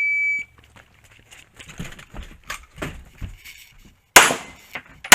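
Shot timer's start beep, a steady high tone about half a second long, then quieter scuffs of movement, then a pistol shot about four seconds in and a second one at the very end as the shooter begins the stage.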